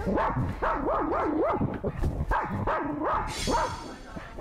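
Spitz barking aggressively at strangers, a rapid string of sharp barks, about two to three a second: territorial alarm barking at visitors in the home.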